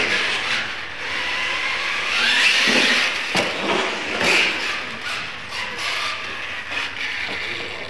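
Radio-controlled monster trucks racing on a concrete floor, their electric motors whining up and down with the throttle, with a sharp knock about three and a half seconds in.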